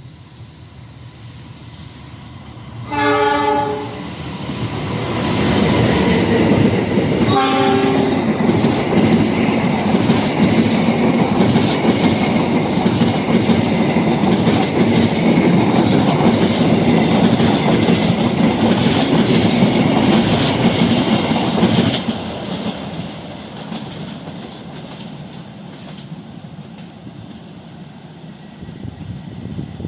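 Train locomotive horn, one blast about three seconds in and a shorter one about four seconds later, then the train passes at speed with loud wheel clickety-clack for about sixteen seconds before fading away.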